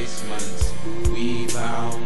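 Background music with a drum beat under held notes.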